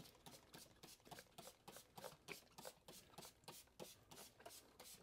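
Trigger spray bottle squeezed over and over, faint short spritzes about four a second, misting baking soda solution onto the dumbbells.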